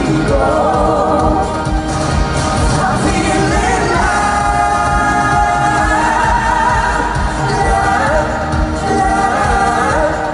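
Pop song performed live: a man and a woman singing a duet over a pop backing with a steady beat. There are long held notes in the middle.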